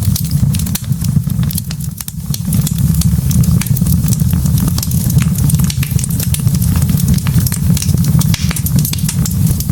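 Log fire burning in a fireplace: a steady low rumble of flames with frequent sharp crackles and pops from the burning wood, several a second.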